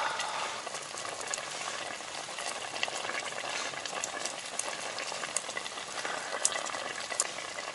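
A pot of oden simmering on a camp stove, a steady hiss, with a few light clicks of metal chopsticks against the pot and a steel cup.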